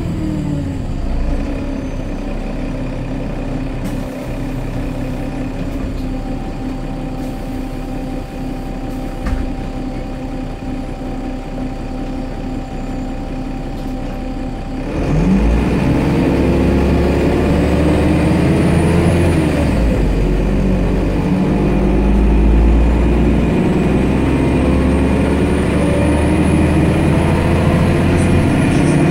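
MAN D0826 LOH17 six-cylinder turbodiesel of a Solaris Urbino 12 city bus with a Voith D854.3 four-speed automatic, heard from inside the cabin. It idles steadily for about the first half, then revs up as the bus pulls away, its pitch climbing and dropping back as the gearbox shifts up.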